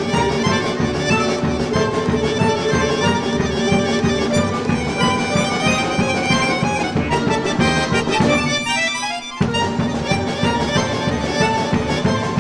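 Folk instrument ensemble playing with a button accordion (bayan), long-necked plucked lutes and bowed strings, over a steady rhythmic pulse. About eight seconds in the bass and accompaniment drop out for about a second, leaving only the higher parts, then the full ensemble comes back in.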